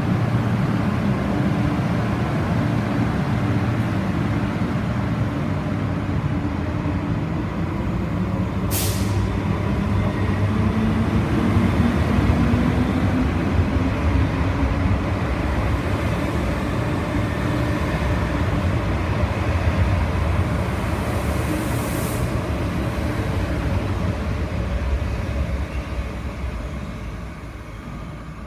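An MTR East Rail line electric train running at the platform and pulling away, its motors giving a steady rumble with a low tone that rises in pitch as it gathers speed. Two brief sharp high-pitched sounds cut through, one about nine seconds in and a fainter one a little past twenty seconds, and the sound fades as the train leaves near the end.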